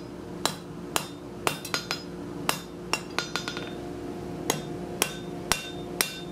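Hand hammer striking red-hot bar steel on an anvil, about two ringing blows a second with a few lighter quick taps and a short pause a little past halfway. The smith is forming the step in a forge-welding scarf.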